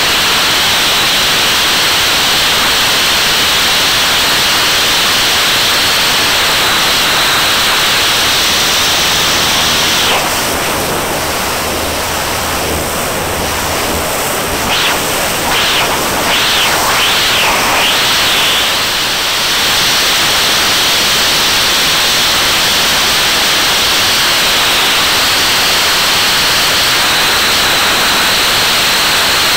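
Airstream rushing over a camera mounted on the tail of a Van's RV-8 in flight: a loud, steady hiss. In the middle it thins and drops a little, with a few quick swooping rises and falls as the airflow over the tail changes, then the steady hiss returns.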